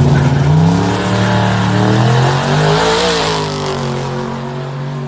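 Car engine at full throttle, its pitch climbing for about three seconds, dipping at a gear change, then pulling on again while fading as the car moves away down the drag strip.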